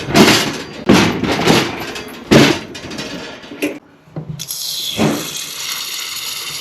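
Several loud knocks and clunks in the first few seconds, then a steady hiss of water running from a faucet, starting about four and a half seconds in.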